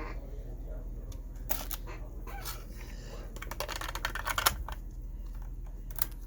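Sharp mechanical clicks and clunks of a Marantz PMD430 portable cassette recorder's transport keys and tape mechanism being worked, a cluster of them about three to four and a half seconds in, over a low steady hum.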